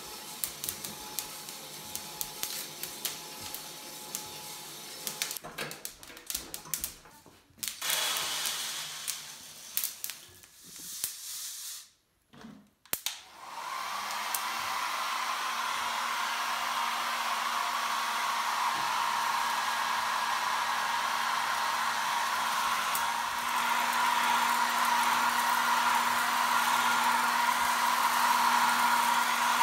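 Dense crackling of coffee beans at second crack in a Kaldi Mini drum roaster running over a butane stove for the first few seconds, then some irregular handling noise. About 14 seconds in a hair dryer switches on and blows steadily with a humming whine, cooling the freshly roasted dark beans in a stainless steel colander.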